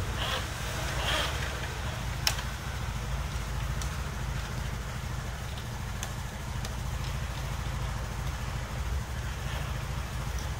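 A steady low rumble with a sharp metallic click about two seconds in and a few faint ticks after it, from hands and tools working the cam timing sprocket on a motorcycle engine.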